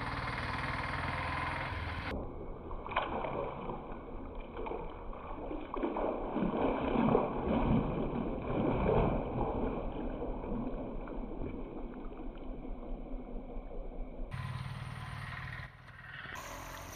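A hooked catfish thrashing and splashing at the water's surface. The splashing is heaviest around the middle, then dies down.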